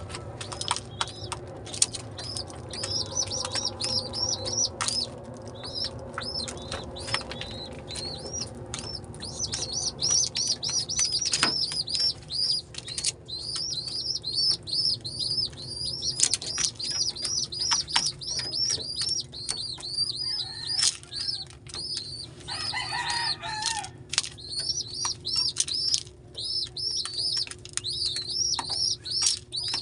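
Pigeon squabs in the nest giving high-pitched begging peeps in quick repeated runs, with wing flapping and short clicks mixed in.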